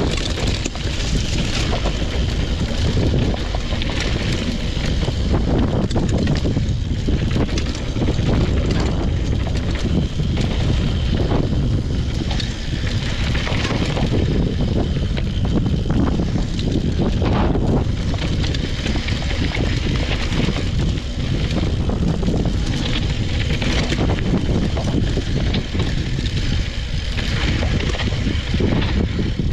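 2014 Yeti 575 full-suspension mountain bike riding down a dirt trail: tyres rolling over dirt with frequent rattles and knocks from the bike over rough ground, under a continuous wind rumble on the action camera's microphone.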